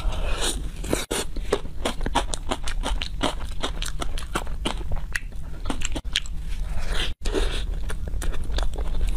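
Close-up wet chewing of a chilled soft bun with chocolate filling: mouth clicks and lip smacks several times a second.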